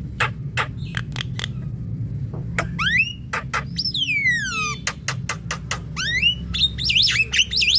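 Javan myna (jalak kebo) singing: a run of sharp clicks, then rising whistles, a long falling whistle about four seconds in, more clicks, and a quick string of rising and falling whistles near the end.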